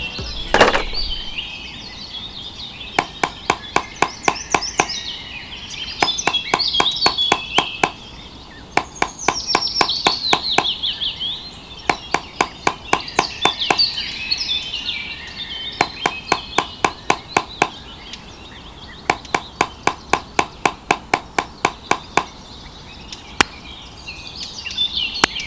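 Small hammer tapping nails into wood in repeated bursts of about six to eight quick strikes, with pauses between, while birds chirp in the background.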